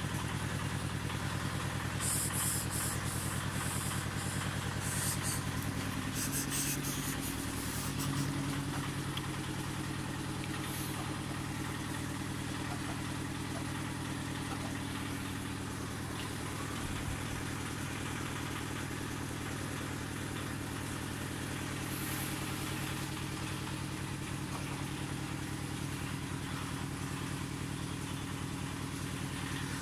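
A motor running steadily with a low hum, its pitch shifting briefly about six to eight seconds in. A few short scratchy noises come about two and five seconds in.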